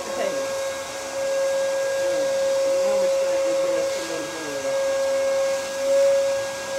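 Steady whine of an electric motor like a vacuum's, holding one pitch and swelling briefly near the end, with faint voices underneath.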